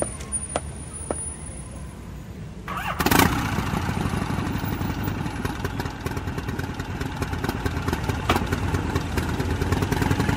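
Motorcycle engine starting about three seconds in and then running steadily, after a few faint clicks.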